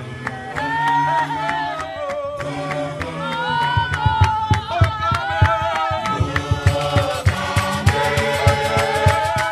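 Apostolic church choir singing a hymn in harmony, with hand claps and a bass drum beating; the beat grows busier and louder in the second half.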